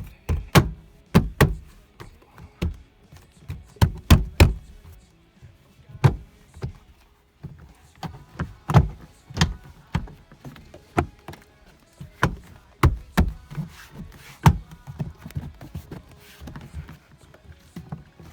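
A string of irregular sharp knocks and clacks, some in quick pairs, from parts being handled and fitted during seat-belt work inside a car.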